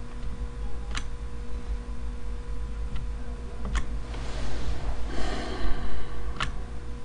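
Computer mouse clicking three times, a couple of seconds apart, with a breathy exhale close to the microphone in the middle, over a steady electrical hum.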